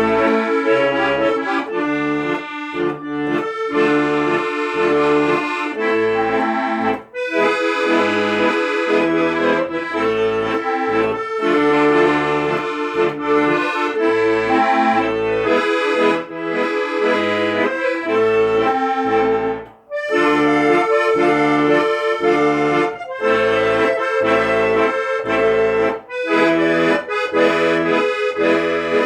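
Instrumental music: a sustained melody over a steadily pulsing bass accompaniment, with a short break twice.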